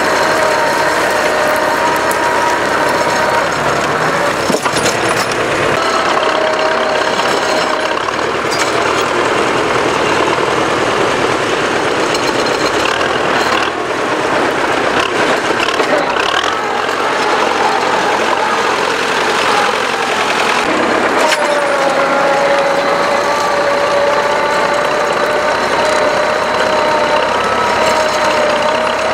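Belarus T-40 tractor's air-cooled diesel engine running steadily while pulling a plough. Its tone weakens for a stretch in the middle and comes back strongly about two-thirds of the way through.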